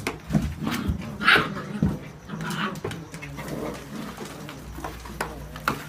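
Seven-week-old whippet puppies playing in a cardboard box: scuffling and scratching of paws on the cardboard, with short puppy yelps or whines about a second and two and a half seconds in.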